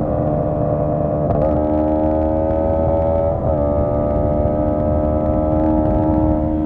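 Honda CB125T parallel-twin engine running steadily while riding. The note dips briefly about a second and a half in and again about three and a half seconds in, then holds steady.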